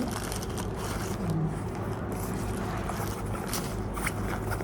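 Scrapes and small clicks of an item being handled, over a steady low hum.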